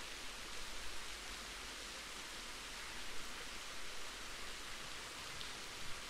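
Waterfall pouring steadily: an even, unbroken rushing hiss of falling water.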